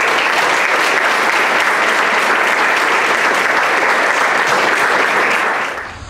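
Audience applause: many people clapping steadily, breaking off sharply near the end.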